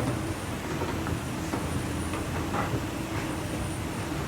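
Toshiba escalator running, heard from on board: a steady low mechanical rumble with a constant hum and a few faint knocks.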